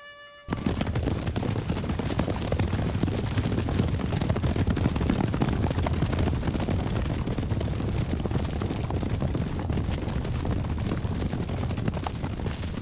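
A herd of Nokota horses galloping: a dense, steady rumble of many hooves that starts suddenly about half a second in.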